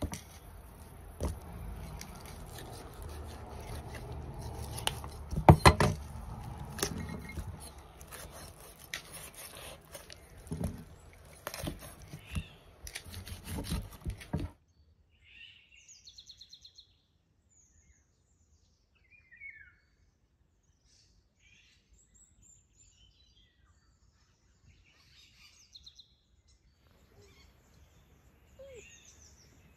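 Large kitchen knife chopping a whole raw chicken on a wooden chopping block: a series of sharp knocks, the loudest about five seconds in. About halfway it cuts off abruptly to a quiet outdoor background with scattered bird chirps, and a steady high trill begins near the end.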